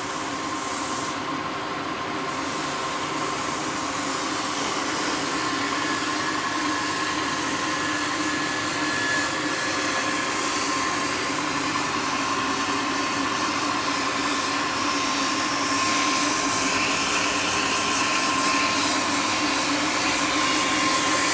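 Metal-turning lathe running steadily, a long steel workpiece spinning in the chuck while it is finished by hand. It makes a steady whine over a broad hiss, growing slightly louder near the end.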